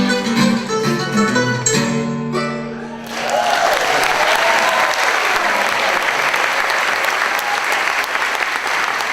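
A song on plucked-string instruments plays its final notes and dies away about three seconds in. A theatre audience then breaks into sustained applause, with a few cheers near its start.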